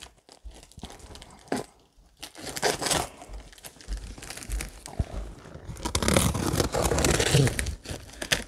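Utility knife slitting the packing tape on a cardboard box, with tape tearing and cardboard crinkling. It comes in irregular scratchy bursts and is busiest about six to eight seconds in.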